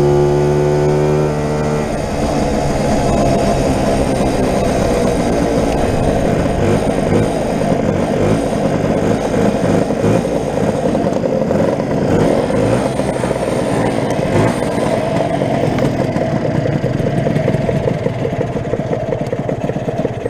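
Lambretta scooter's two-stroke single-cylinder engine, heard from on board. For the first couple of seconds it climbs in pitch under acceleration, then runs rough and uneven for the rest of the ride, a fault the rider puts down to fuel.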